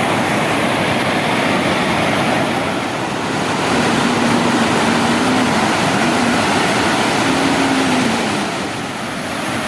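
Steady roar of water pouring over a dam's waterfall, with a faint wavering hum in the middle.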